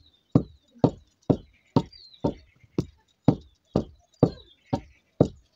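Long wooden pestle pounding rice into flour in a mortar by hand: a steady run of about eleven dull thuds, roughly two a second.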